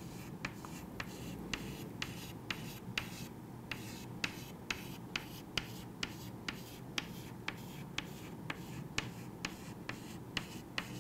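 Chalk tapping and scratching against a chalkboard in quick, short strokes, about two to three a second, as small coiled tubules are drawn.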